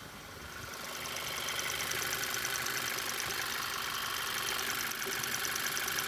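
Volkswagen Jetta GLI's turbocharged four-cylinder engine idling, growing louder over the first two seconds, with a fast, even high ticking on top. The oil filler cap is off, letting unmetered air in, so the engine runs lean and the ECU is richening the mixture.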